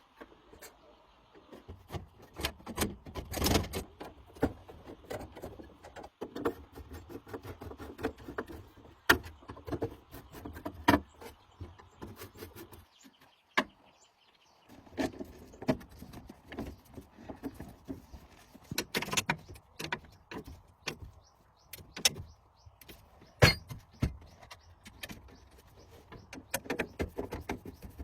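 Irregular clicks, knocks and scraping of hand work with tools on metal parts, with a pause about halfway through.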